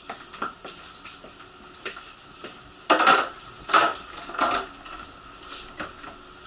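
Clicks, knocks and clatter of people and bags moving through a stopped train car, with three louder rough scraping rustles about three, four and four and a half seconds in.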